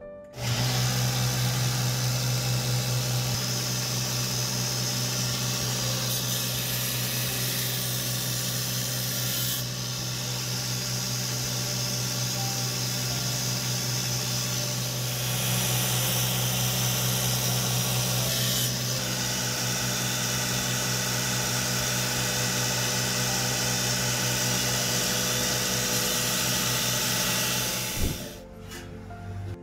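Belt grinder's electric motor starting up and running steadily with a low hum, while a steel kitchen knife blade is held against its non-woven abrasive belt; the grinding noise changes several times as the blade is worked. It cuts off shortly before the end.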